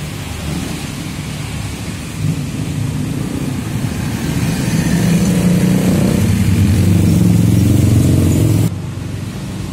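Street traffic of cars and motorcycles passing close by, their engines running. The engine sound swells to its loudest from about five seconds in, then drops away suddenly near the end.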